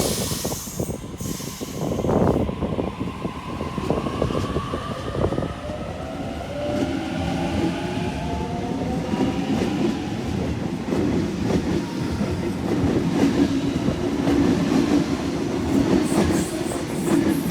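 Sydney Waratah Series 2 electric suburban train pulling out of the platform, its traction motors giving a whine that rises steadily in pitch as it gathers speed, over the clatter of the wheels.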